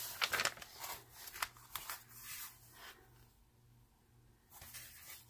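The protective paper cover being peeled back from a sticky diamond-painting canvas and smoothed by hand: a run of short crackling paper rustles and rubs. They pause about three seconds in and pick up again near the end. The cover clings to the canvas's strong adhesive.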